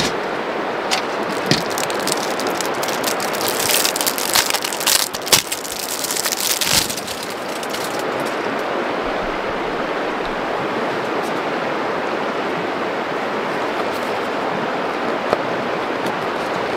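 Steady rushing of a nearby river, with a flurry of sharp clicks and rustles in the first seven seconds from handling things on the camp table.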